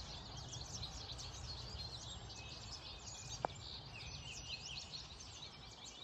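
A flock of yellow finches twittering: many short, high chirps overlapping throughout, over a low steady rumble. A single sharp click comes about three and a half seconds in.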